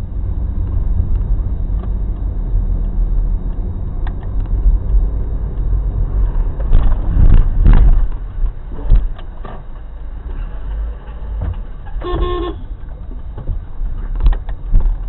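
Steady engine and road rumble inside a car's cabin, with a few heavy jolts and knocks about halfway through as the car is forced up onto the pavement. Later comes one short car horn blast of about half a second.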